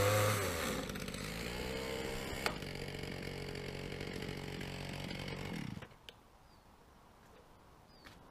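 Chainsaw engine revved high, dropping back to a steady lower speed for a few seconds, then shut off, its pitch sagging as it dies a little over halfway through. A sharp click follows just after it stops.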